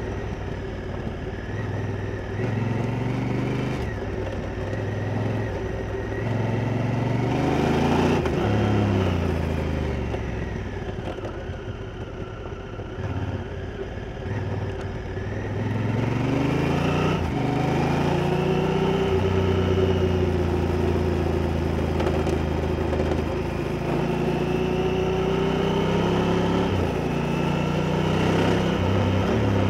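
Honda Africa Twin's parallel-twin engine under way with a manual gearbox. It climbs in revs and shifts up, with pitch drops around four and eight seconds in. It then eases off, quieter and falling in pitch, through the middle. After that it pulls up again with another shift and settles into a steadier, slowly rising drone.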